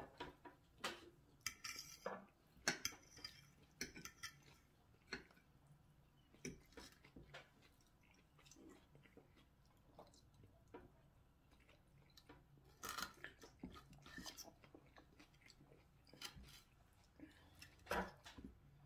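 A person chewing gyro cheese fries, with a metal fork clicking and scraping on a plate. The sound is faint, made of scattered short clicks and smacks, busiest about two seconds in, near thirteen seconds and near eighteen seconds.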